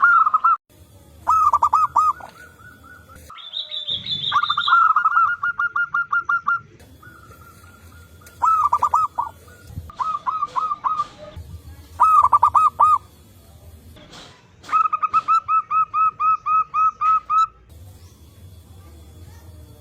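Zebra doves (perkutut) cooing: repeated bouts of rapid, staccato cooing notes, with one bird answering another. A brief higher, thinner call comes in about four seconds in.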